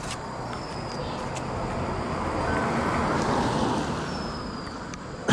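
An SUV drives past on the road, its tyre and engine noise swelling to a peak and fading as it moves away. A sharp knock comes at the very end.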